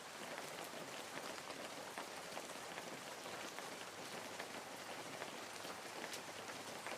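Steady rain falling on a surface: an even hiss dotted with fine drop taps.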